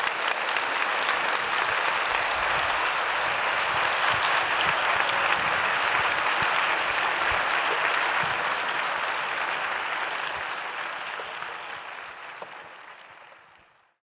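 Audience applauding steadily, the clapping fading away over the last few seconds.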